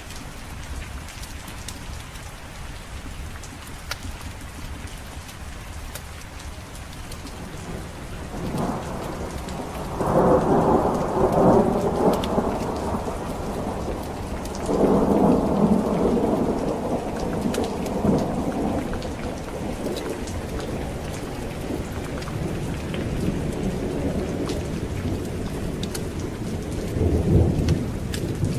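Steady rain falling. Thunder rolls in about a third of the way through, in two long loud rumbles, and another rumble follows near the end.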